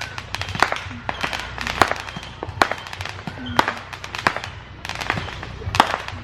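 Fireworks and firecrackers going off all around: a dense, irregular string of sharp bangs and pops, several a second, which sound like nothing but bombs.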